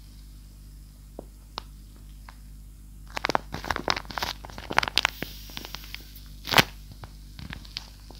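Paper crinkling and crackling as it is handled: a few scattered sharp crackles, then a dense flurry of them, and one louder crackle near the end.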